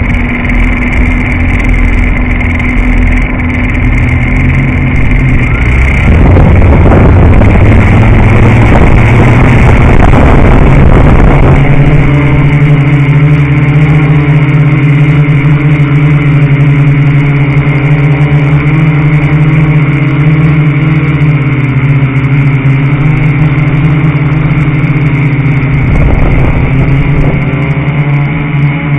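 Quadcopter's electric motors and propellers buzzing close to the onboard camera. A loud rushing noise joins about six seconds in and lasts several seconds, then the buzz settles to a steady pitch as it flies.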